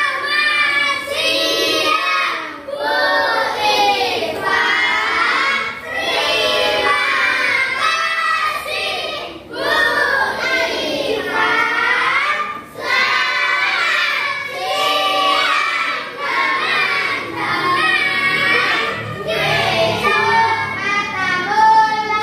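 A children's song: young voices singing a melody with musical accompaniment, in phrases with short breaths between them.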